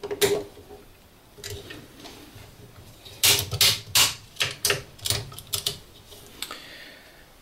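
Sharp plastic clicks from hands working DIN-rail circuit breakers and their wiring in an electrical control panel. There is one click just after the start, then a quick run of about nine clicks over two and a half seconds from about three seconds in.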